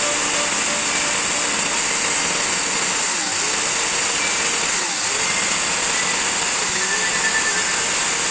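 A small electric motor running steadily, over faint background music.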